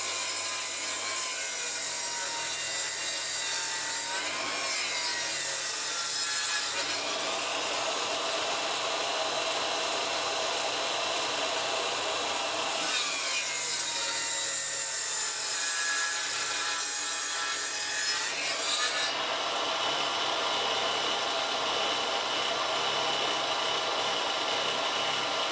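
Mac Allister budget bench table saw ripping a rough bark-covered log, the blade cutting continuously. The motor's whine dips in pitch and recovers a few times as it bogs under the load: the cheap saw labouring through wood about as thick as its cutting height.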